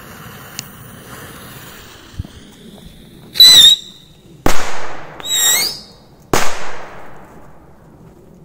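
Two small whistling rocket firecrackers going off one after the other: each gives a loud, shrill, wavering whistle, followed about a second later by a sharp bang. A faint hiss comes before them.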